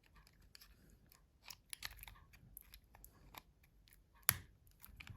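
Plastic parts of a Nokia C2-06 phone housing being handled and pushed together by hand: a string of faint small clicks and crackles, with one sharper click a little past four seconds in.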